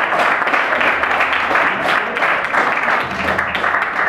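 Audience applauding and clapping steadily, with a low hum underneath from about a second in.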